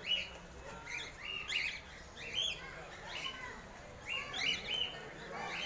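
A flock of caged parakeets chirping: many short, arched chirps overlapping in clusters, rising and falling every second or so.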